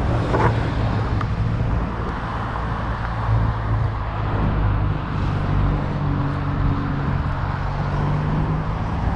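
A motor vehicle engine running steadily at low revs, a continuous low hum over outdoor street noise.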